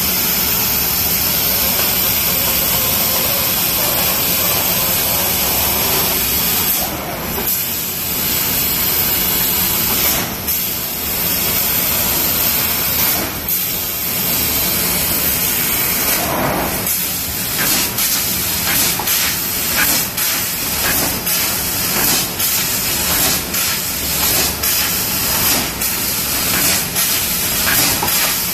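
TRUMPF laser cutting machine cutting sheet metal: a loud, steady hiss of the cutting head's gas jet. It drops out briefly a few times, then in the second half breaks off about twice a second as the head cuts many small shapes.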